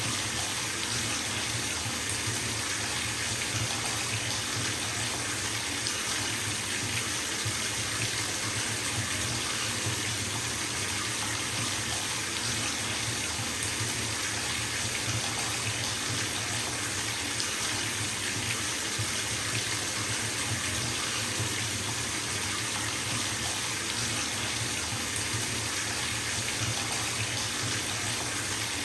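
Bathtub tap running steadily, its stream of water splashing into the filling tub.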